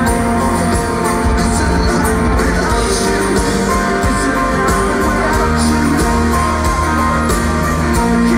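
Live pop-rock band playing through a PA, heard from within the audience: a steady drumbeat under electric and acoustic guitars and keyboards.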